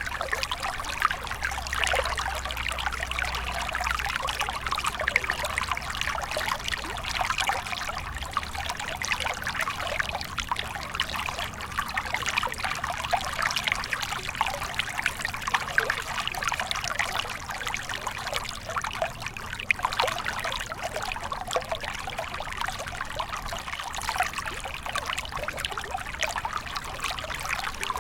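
Small stream flowing steadily over stones, a continuous splashing trickle with many small bubbling splashes.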